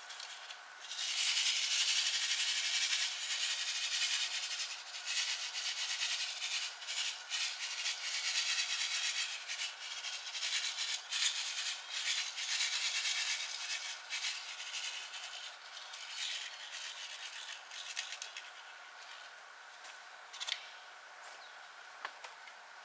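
Paper seed packet rustling and small cauliflower seeds rattling in it as they are shaken and tapped out, a busy stream of tiny rattles that starts about a second in and thins out to a few odd clicks near the end.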